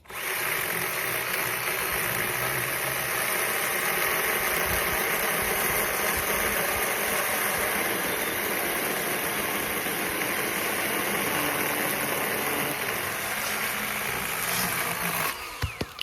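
Milwaukee M12 Hatchet, a battery-powered pruning chainsaw with a 6-inch bar, cutting through a cherry log. It runs steadily for about fifteen seconds, then stops as it gets through and finishes the cut.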